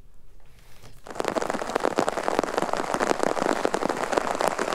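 Very heavy rain pouring down: a dense hiss of countless drop impacts that comes in suddenly about a second in.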